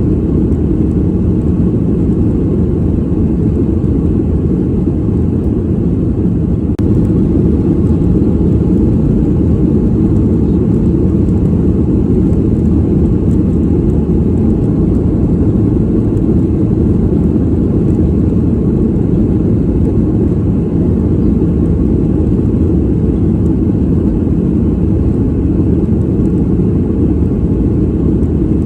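Steady, deep rumble of an airplane cabin in flight, heard from a passenger seat: constant engine and airflow noise sitting low in pitch, with little hiss above it.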